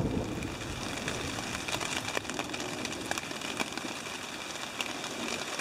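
Light rain and drips pattering on a camping tarp overhead: scattered sharp ticks over a steady hiss, with wind rumbling on the microphone that eases after about two seconds.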